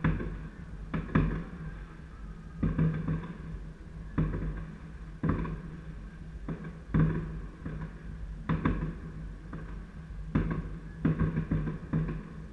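Fireworks going off, irregular bangs every second or so, heard over music with a steady bass.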